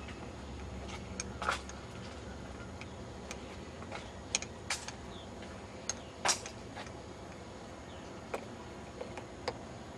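Irregular light clicks and ticks, about ten of them, over a steady background hiss: handling noise from a handheld camcorder as it is moved about.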